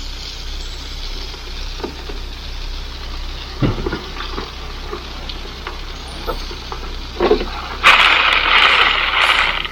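A dump truck running while it unloads a load of limestone, with scattered clunks. A loud rushing hiss starts suddenly near the end and lasts under two seconds.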